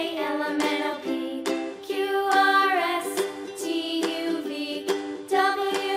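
Background music: a light tune with repeated plucked notes and a melody line.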